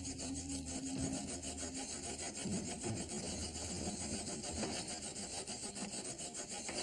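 Rapid, steady rasping strokes of a hand tool worked against the iron bars of a basement window, cutting at them.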